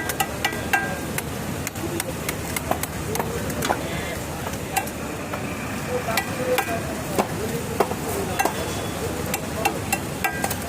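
Knife work on a large katla fish: irregular sharp clicks and knocks of the blade going through the fish, over a steady background din with voices.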